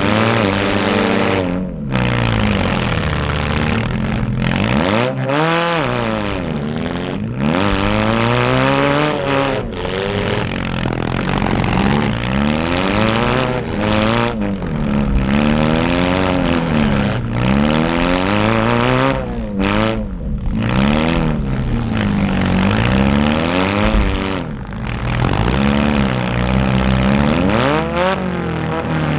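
Small demolition-derby cars' engines revving up and down over and over as the cars accelerate and back up, with brief sudden dropouts in the sound.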